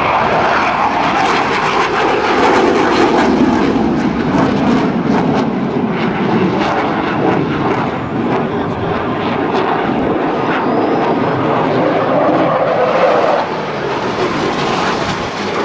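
Jet engine noise from a Blue Angels F/A-18 Hornet's twin turbofans as the jet flies overhead: a loud, steady rushing sound that eases slightly near the end.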